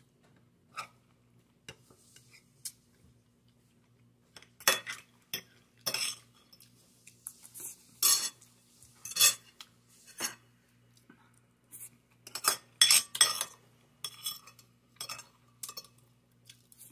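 Metal spoon and fork clinking and scraping against an amber glass plate and a white ceramic bowl while eating, in irregular taps that come in clusters, sparse at first and busier from about four seconds in.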